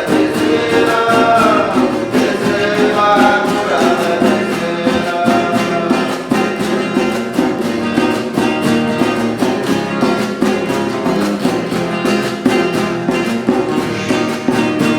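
A Huni Kuin chant song: voices singing over steadily strummed acoustic guitar.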